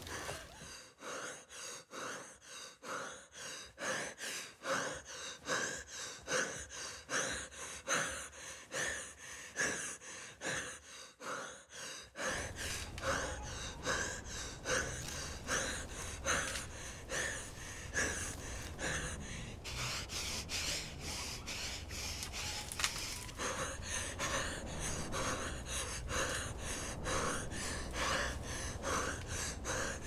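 A person's quick, rhythmic gasping breaths, about two a second, with a low rumble joining about twelve seconds in.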